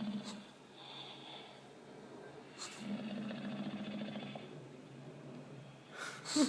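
Bulldog snoring played back through a screen's speaker: one snore ends about half a second in, and a second, longer rattling snore comes about 2.5 seconds in. A brief loud clatter and a short voice-like sound come near the end.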